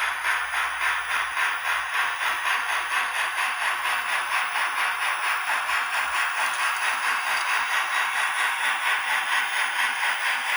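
Sound system of a Kato model Union Pacific Big Boy 4014 steam locomotive playing a steady steam-exhaust chuff, about four beats a second, thin and high with almost no bass as from a small onboard speaker.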